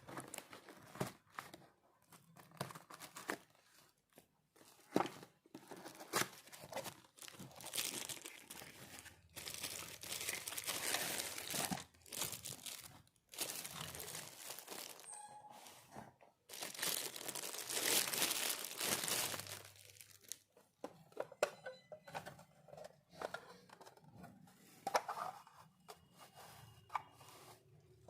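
Plastic and paper packaging crinkling and tearing as miniature toys are unboxed by hand, in irregular rustles and clicks with two longer stretches of steady crinkling, about a third of the way in and again near two-thirds.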